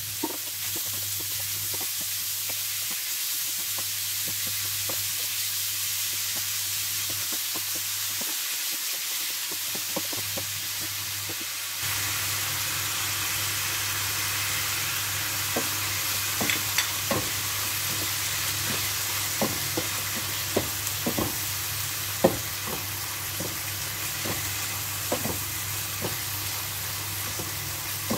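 Minced beef sizzling as it fries in a nonstick frying pan, stirred with a wooden spatula that scrapes and clicks against the pan, the clicks coming more often in the second half.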